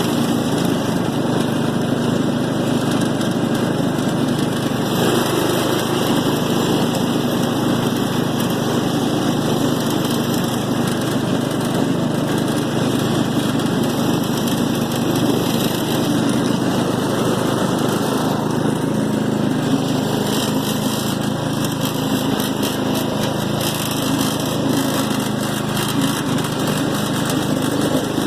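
Small Allis-Chalmers riding lawn mower's engine running steadily at an even speed.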